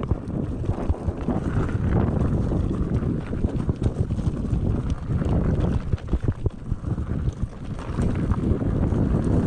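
Wind buffeting the microphone of a camera carried on an enduro trail ride, with scattered knocks and rattles from the rough ground.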